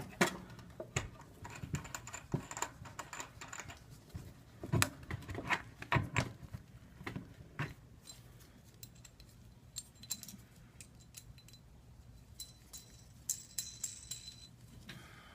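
Irregular light clicks and taps of small hard parts and tools being handled on a work surface, over a faint steady low hum.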